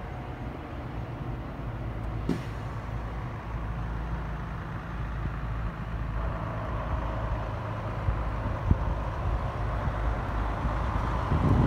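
A motor vehicle's engine running steadily, a low rumble with a faint higher whine joining about halfway through, and a single sharp click a couple of seconds in.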